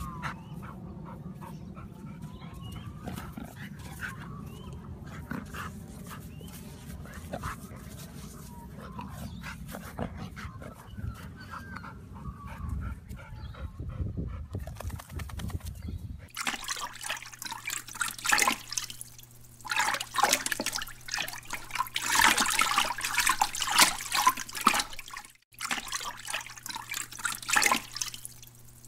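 A dog making faint whines over a low rumble. After a cut about 16 seconds in, water splashes and laps loudly around a swimming dog, over a steady low hum.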